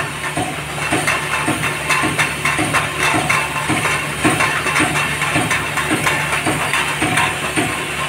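Pneumatic aerosol can filling and crimping machine running: a steady hum under a rapid, regular clatter of knocks, about three a second, with air hissing throughout.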